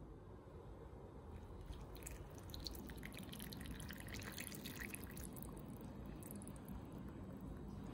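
Water poured from a glass jug into a ceramic bowl of instant ramen noodles, splashing faintly. It starts about two seconds in and runs almost to the end.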